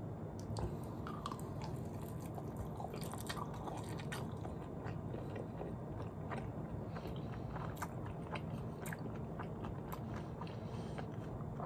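A man chewing a mouthful of rice with bulgogi beef and kimchi, faint wet clicks and small crunches over a steady low hum.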